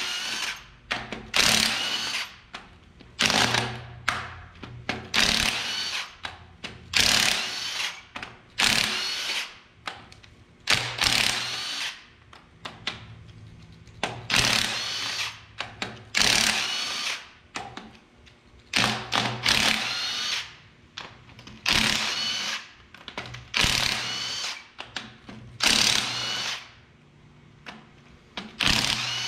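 Cordless impact wrench breaking loose and spinning out the cylinder head bolts on a 12-valve Cummins 5.9 diesel. It goes in many short runs of a second or less with brief pauses between, the whine rising in each run.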